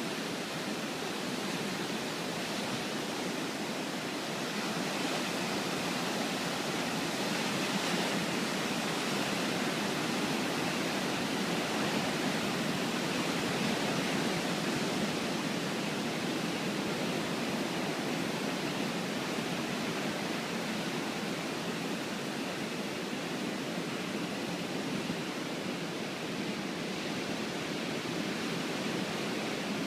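Ocean surf washing onto the shore: a continuous rush of noise with no separate wave crashes, swelling slightly through the middle.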